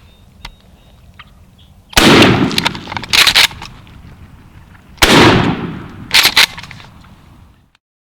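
Wild turkey toms gobbling very loudly from the roost close overhead. There are two long gobbles about three seconds apart, each followed a second later by a shorter double burst.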